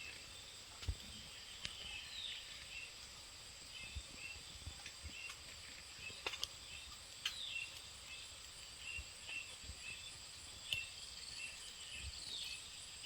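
Forest ambience: a steady high-pitched insect drone, with short bird chirps repeating throughout and a few faint clicks and knocks.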